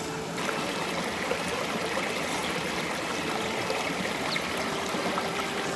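Water of a rocky stream and waterfall rushing steadily; the hiss of the water grows brighter about half a second in.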